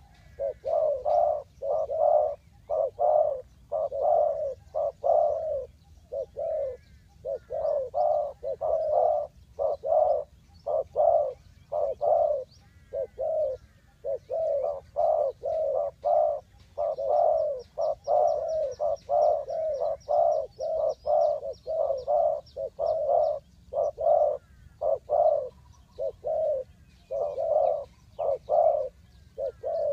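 Spotted doves cooing: a dense run of short, low coo notes repeating with hardly a break. A faint high, rapid trill sounds in the middle.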